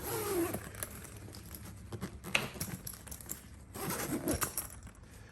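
Handling noise from a shop-vac accessory bag being moved about: soft rustling with a few light clicks, one sharp click about two seconds in, and a busier stretch of rustle near the end.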